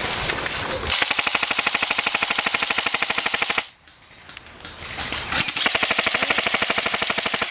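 Airsoft electric gun firing full-auto in two long bursts, a rapid, even rattle of the gearbox cycling. The first burst starts about a second in and stops abruptly after about three seconds; after a short pause a second burst builds up and runs on.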